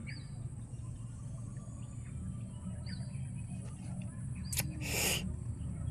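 Outdoor waterside ambience: a bird giving short chirps a few seconds apart over a steady high hiss and a low rumble. A sharp click, then a brief rush of noise, comes a little before the end.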